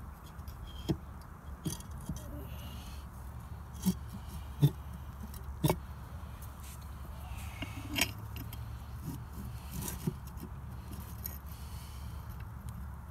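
Irregular clicks and light knocks, about seven, of pump parts being handled and seated as the stages of a Flint & Walling CJ101 pump are fitted onto the shaft by hand. The clicks come over a steady low hum.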